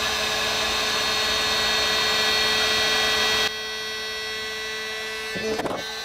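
Heat gun blowing hot air steadily to shrink the heat-shrink tubing on crimp connectors, a blower hum with a steady whine. About three and a half seconds in it drops to a lower, quieter level.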